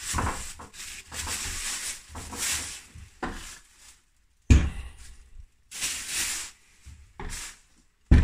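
Clear plastic wrapping crinkling and rustling as a new chainsaw is pulled out of its bag and handled, with two sharp knocks, about halfway through and near the end.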